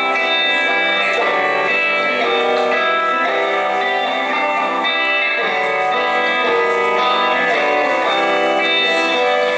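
Rock band playing live, an instrumental passage carried by guitars with many sustained, shifting notes.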